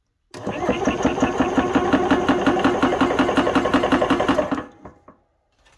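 AEA 480 bar (7000 PSI) oil-free PCP air compressor starting up and running with a rapid, even pumping rhythm, then stopping suddenly after about four seconds when switched off.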